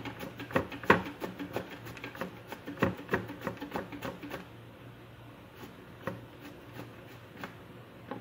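Peeled bottle gourd being sliced into thin rounds on a hand mandoline slicer: a quick, regular run of rasping strokes, about two or three a second, that stops about four seconds in. A few scattered faint knocks follow.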